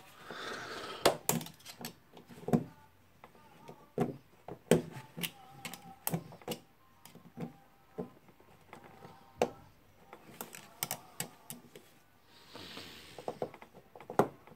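Irregular sharp metal clicks and taps of a screwdriver prying at a spring retaining ring on a rotary hammer's tool holder, with a short scrape near the start and another about twelve seconds in.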